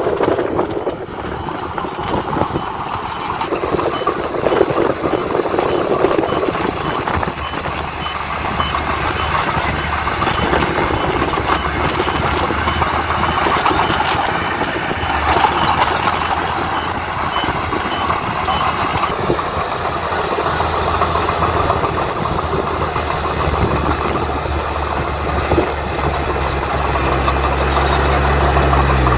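Diesel engine of heavy earthmoving machinery running steadily, with a reversing alarm beeping at an even pace until about two-thirds of the way through. The engine's low note grows stronger near the end.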